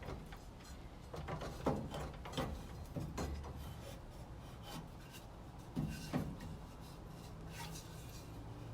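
Wood scraping and knocking as a board is handled and worked into place: a few irregular scrapes and knocks, bunched in the first half and again about six seconds in.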